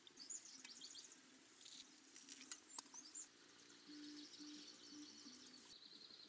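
Faint chirping of birds and insects, densest in the first half, with three short low notes about four seconds in.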